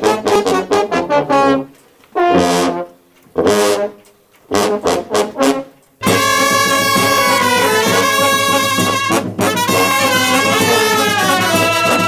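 Brass band music from a village fanfare. First a baritone horn plays short solo phrases with pauses between them, then about halfway through the full band of horns and trumpets comes in suddenly and plays on steadily.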